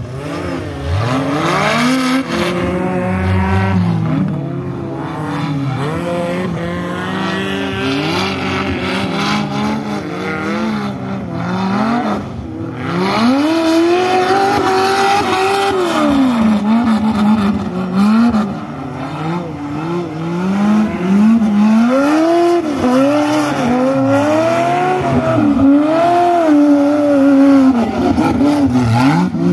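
Off-road side-by-side race buggy's engine revving up and down over and over under throttle, its pitch rising and falling every second or two as it works over the track's mounds and ruts.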